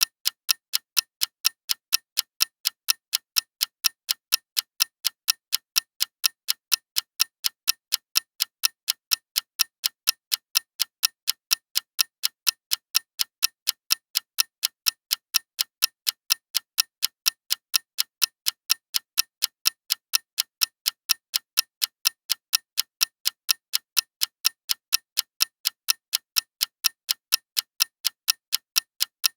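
Clock ticking, a steady run of sharp, evenly spaced ticks that keep an even loudness.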